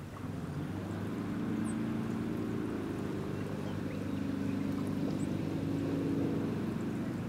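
Ski tow boat's engine running at a steady pitch as the boat pulls a water-skier down the course, a continuous drone.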